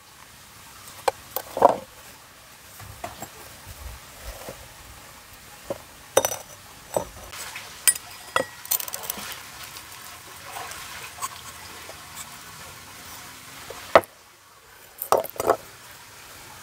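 Knife and clay pot knocking and scraping as beef stew is tipped and scraped out of the clay pot into a bowl. The sound is scattered clinks and knocks, with a stretch of soft scraping and sliding in the middle.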